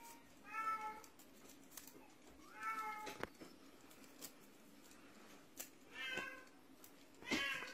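Russian Blue kittens meowing: four short, high-pitched meows spread through, the last one near the end the loudest, with a few faint clicks between them.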